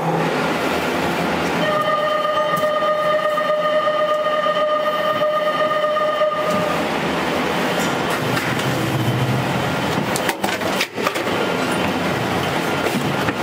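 Bizan Ropeway gondola and station machinery running with a loud, steady rattling rush that starts abruptly, while a steady pitched warning tone sounds for about five seconds from about two seconds in. The audio has passed through a noise-removal filter set to 75% that does not take the machine noise out.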